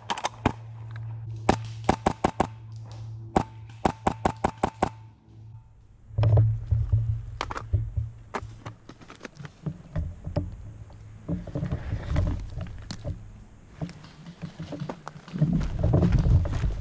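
Airsoft rifle firing short rapid strings of shots, sharp clicks several a second, in the first five seconds. From about six seconds on come low thumps and rustling as the rifle and its mounted camera are handled and carried.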